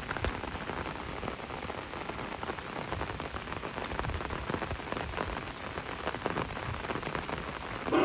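Heavy rain falling steadily, many individual drops striking close by.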